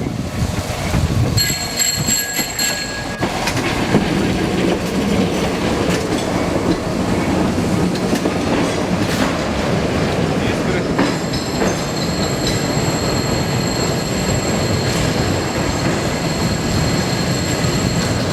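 A tram rolling slowly over depot track, with its wheels clacking over rail joints and points. Its wheels squeal on the curves, briefly about a second and a half in, then again in a long, steady squeal from about 11 seconds on.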